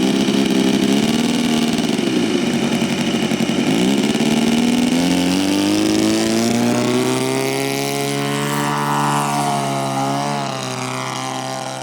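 ASP 160 twin glow engine of a Seagull Decathlon 120 model airplane running. Its pitch dips twice in the first few seconds, then rises steadily through the middle as it revs up, and eases off a little near the end.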